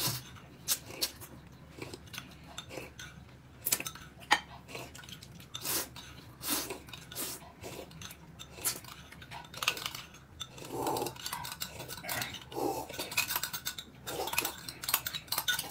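Utensils clinking and tapping on bowls and plates at a meal: irregular short clicks, with some chewing.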